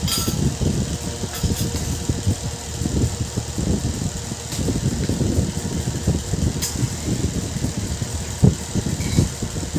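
Flat metal spatula stirring thick paneer gravy in a metal kadhai: irregular low scrapes and knocks all through, over a steady low hum.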